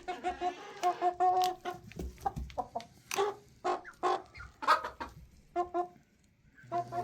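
Chickens clucking: a run of short, repeated calls, with a few sharp taps mixed in, falling quiet for a moment near the end.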